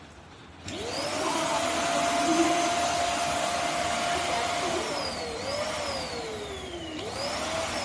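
Cordless dust mite vacuum cleaner (Xiaomi LPMY-017 PRO) switched on about a second in, its motor spinning up to a steady high whine with a rushing hiss of air. From about five seconds in the whine slowly sinks and quickly climbs back twice, then sinks again near the end.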